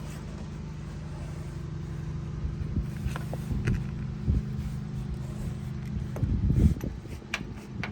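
Plastic door entry guard being pressed and tapped down onto a Jeep Gladiator's door sill: several sharp clicks and knocks, with a few dull thumps a little after six seconds in, over a steady low hum.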